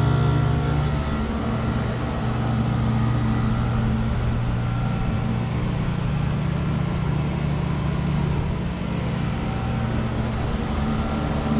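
Trane Odyssey commercial heat pump running through a defrost cycle: a steady compressor hum with several steady higher tones. The low hum shifts pitch about a second in, then holds steady.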